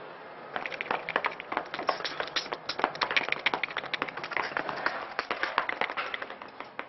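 A quick, irregular run of sharp claps, several a second, starting about half a second in and thinning out near the end.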